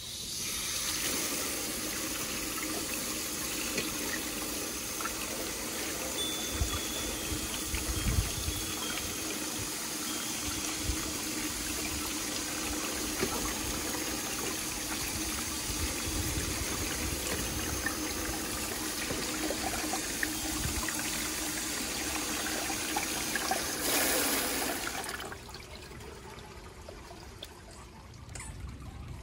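Water spraying onto grapefruits in a metal colander: a steady splashing rinse that stops about 25 seconds in.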